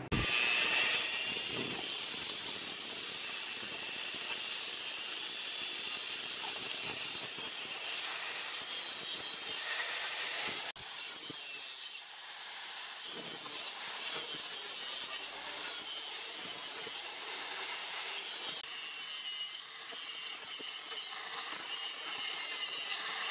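Electric angle grinder grinding the edge of a small steel plate. The high motor whine dips and rises in pitch as the disc is pressed into the metal, with a brief break a little before halfway.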